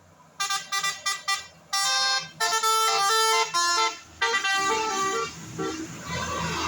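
Bus 'telolet' multi-tone musical horn playing a tune. About half a second in, it starts with a quick run of short toots of changing pitch, then goes on to longer held notes.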